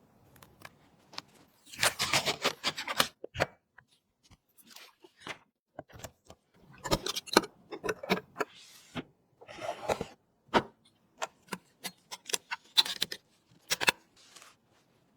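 Hands handling PC parts and packaging: irregular sharp clicks and taps with short bursts of rustling and scraping.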